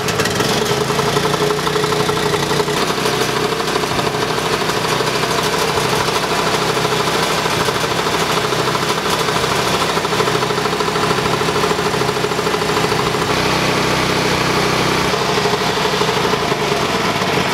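DeWalt gas-engine air compressor running loud: its Honda 390 cc engine runs steadily while the two-cylinder pump compresses air with a steady rhythmic knock, which the owner takes to be just the two cylinders compressing, not a fault.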